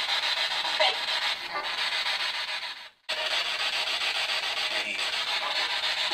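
PSB7 Pro spirit box sweeping through radio frequencies in reverse at speed 110, giving a steady hiss of radio static with faint short blips. The static cuts out for a split second about halfway through.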